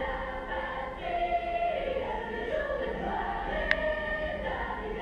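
A choir singing, heard from a television's speaker across a room, with one sharp click about two-thirds of the way through.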